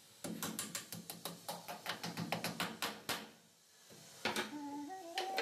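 Hammer striking a plywood cabinet panel in quick light blows, about seven a second, for about three seconds. After a short pause come a few more blows.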